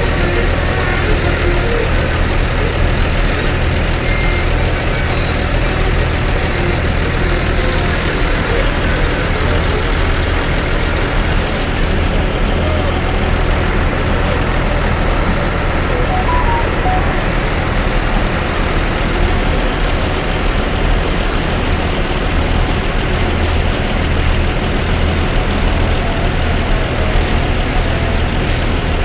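Bus diesel engine idling, a loud, steady low drone that does not change speed.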